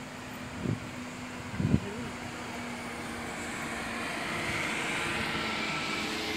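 Engine noise swelling over a few seconds, over a steady low hum that fades out partway through. Two short thumps in the first two seconds.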